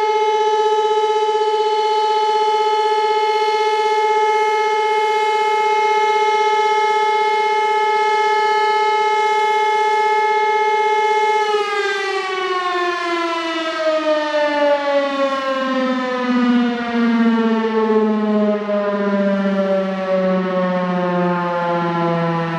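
Elektror L1/F2 electromechanical siren sounding a steady test tone, then switched off about eleven seconds in and winding down, its pitch falling steadily as the rotor slows.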